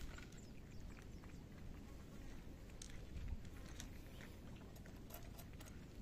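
Cats lapping milk from a bowl and eating, heard as faint, irregular small wet clicks and ticks.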